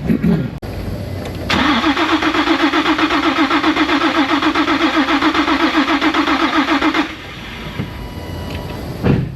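Nissan 350Z's V6 cranking over on the starter for about five seconds without firing, an even rapid pulsing, with a compression gauge threaded into one spark plug hole. This is a compression test on an engine that will not start.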